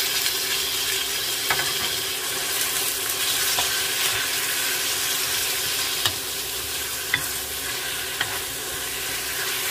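Raw ground pork and beef frying in hot oil in a wok, a steady sizzle, with a wooden spatula ticking against the pan a few times as the meat is stirred and broken up.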